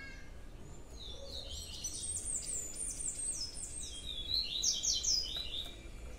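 A small songbird singing a rapid, high-pitched twittering song of quick notes, many sliding downward, for about four and a half seconds, over a faint low hum.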